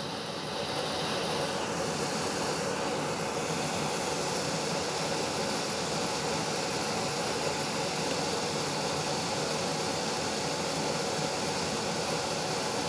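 Steady rushing background noise, even and unchanging throughout.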